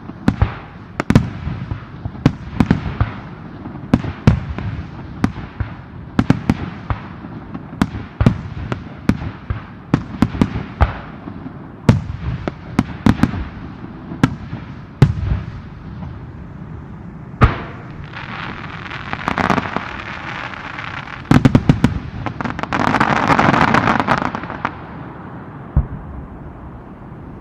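Fireworks going off: a rapid series of sharp bangs for about the first seventeen seconds, then two stretches of dense hissing noise, about twenty and twenty-three seconds in, before it dies down.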